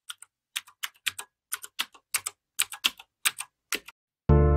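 Typing sound effect: a quick, uneven run of computer-keyboard keystroke clicks, many in close pairs, matching text typed out letter by letter. Near the end a loud sustained musical chord cuts in suddenly.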